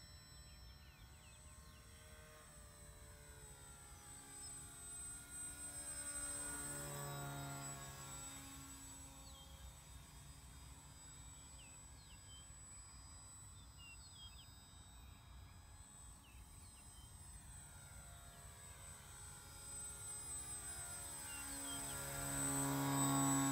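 Small electric RC plane's brushless outrunner motor and 7x3 propeller droning in flight, with a steady buzzing pitch. It swells twice as the plane flies past, its tone sweeping as it goes by, and is loudest near the end as the plane passes close overhead.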